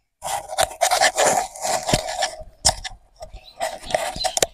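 Clothing rubbing and scraping against a collar-clipped wireless lavalier mic while the wearer walks, with a few sharp knocks along the way.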